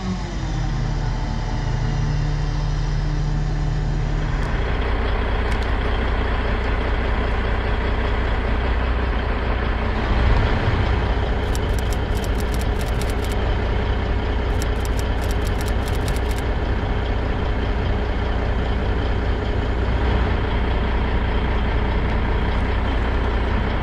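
Boom crane truck's engine running steadily, with a held tone for the first four seconds and then an even rumble. Two short bursts of rapid high ticking come about halfway through.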